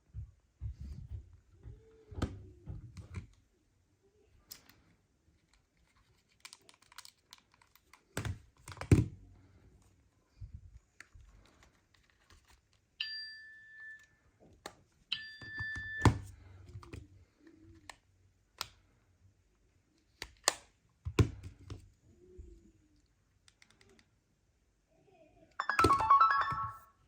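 Smartphones being handled and tapped, with scattered clicks and knocks. Two short electronic beeps come about halfway through, and a loud burst of phone ringtone lasts about a second near the end.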